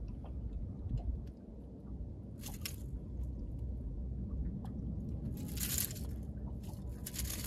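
Handling noise from a freshly caught fish on a boat deck: three short, rough rustling and scraping bursts, about two, five and a half and seven seconds in, over a steady low rumble.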